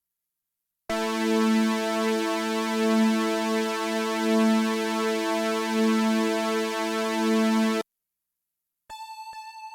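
Arturia Modular V3 software modular synthesizer playing a held note that starts abruptly about a second in, steady in pitch and swelling slowly about every second and a half, then cuts off suddenly. After a moment of silence, a quieter, thinner, higher tone with quick ticks starts near the end.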